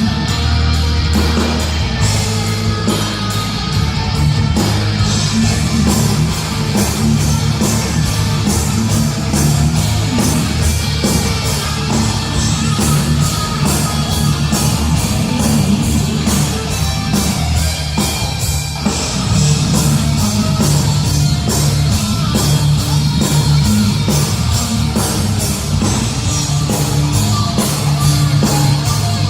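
Heavy metal band playing live through a PA: distorted guitars, bass and rapid drumming.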